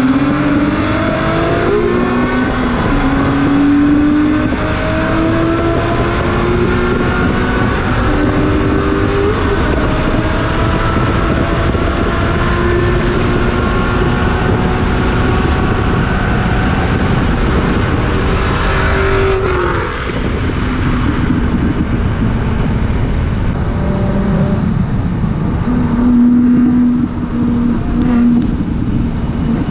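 Nissan 350Z HR's 3.5-litre V6 heard from inside the cabin at full throttle, its pitch climbing through the gears with several upshifts. About twenty seconds in the revs fall away sharply as it lifts off, and it runs on at lower, steadier revs.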